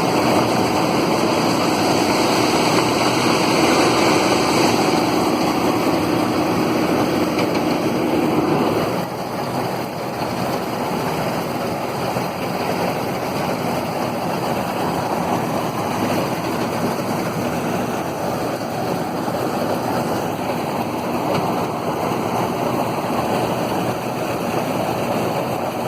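New Holland TF44 combine harvester running, a loud steady dense machine noise. About nine seconds in, a humming tone drops away and the sound becomes a little quieter.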